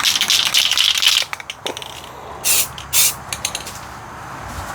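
Aerosol spray paint can being shaken, its mixing ball rattling, which stops about a second in. Two short hisses of spray follow, about half a second apart.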